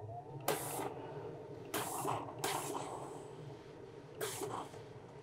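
Hose-fed steam generator iron giving four short hissing bursts of steam while pressing a folded fabric corner flat, over a steady low hum.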